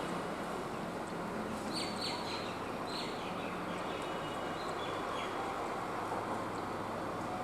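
Small birds chirping, a handful of short, sharp calls about two seconds in and fainter notes after, over a steady outdoor noise.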